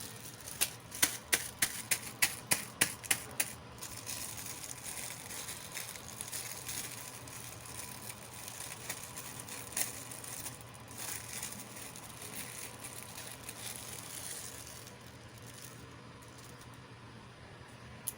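Hands unboxing miniature toys: a quick run of about nine sharp clicks, then packaging rustling and crinkling for several seconds, with one more click about ten seconds in.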